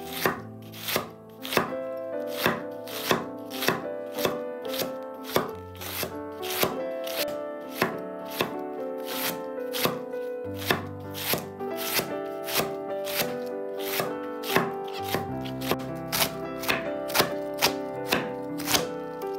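Kitchen knife chopping food on a cutting board in a steady rhythm, about one and a half cuts a second, over soft piano music.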